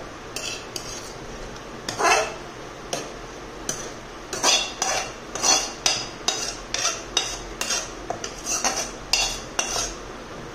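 Steel slotted spoon scraping and knocking against a pan and the rim of a steel mixer-grinder jar as fried vegetables are pushed into the jar: a series of irregular metal clinks, one loud knock about two seconds in and quicker ones from about four seconds on.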